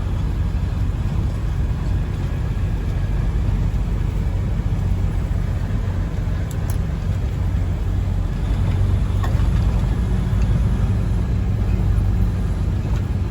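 Diesel engine of a fully loaded logging truck (about 76 tonnes) pulling hard up a steep hill in a low gear: a steady, low drone with no gear changes, and a couple of faint clicks near the middle.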